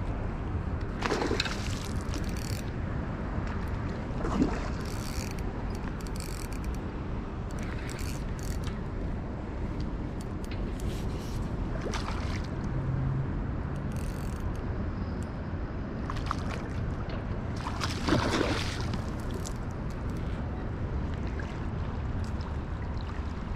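Steady wind rumble on the body-worn microphone, with several brief splashes from a hooked coho salmon thrashing at the surface, the clearest about halfway through and about three-quarters through.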